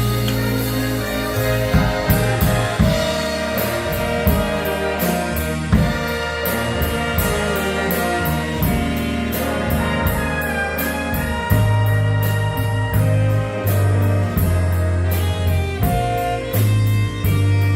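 Big band playing: saxophone and brass chords over bass and drum kit, with steady, even cymbal strokes throughout. The bass notes grow stronger about two thirds of the way in.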